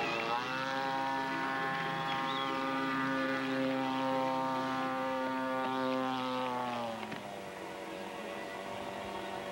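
Radio-controlled model airplane engine running at a high, steady pitch. Its note rises just after the start, holds, and drops about seven seconds in.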